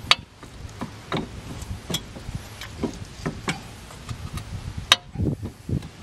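Jeep Grand Cherokee WK front steering knuckle and strut being worked by hand, giving irregular metal clicks and knocks. Two sharp clicks stand out, one just after the start and one about five seconds in, and a few duller knocks follow the second.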